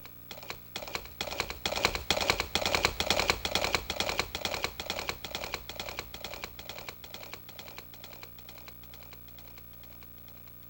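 Built-in sound effect of a TJ Media WOW-7300-2 karaoke machine: a rapid run of sharp clicks, loudest in the first few seconds, then thinning out and fading away.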